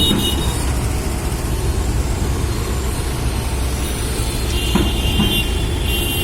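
Heavy construction machine's engine running steadily with a low rumble.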